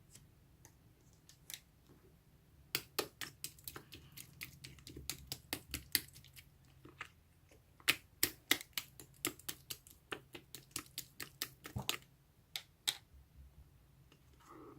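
Slime being squeezed and pressed by hand, making an irregular run of sharp, sticky clicks and pops from trapped air. The clicks start a few seconds in, come fast through the middle and thin out near the end.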